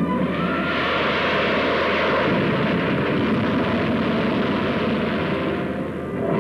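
Aircraft flying over: engine noise swells in, holds for a few seconds, and fades away, as a plane passes overhead.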